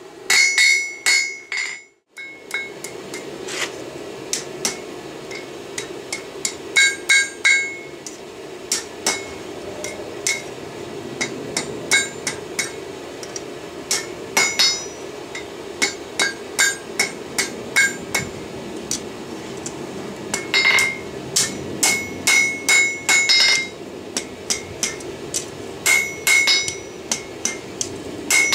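Hand hammer forging steel on a Peddinghaus anvil: runs of quick blows with short pauses between them, each blow ringing. A steady hum runs underneath.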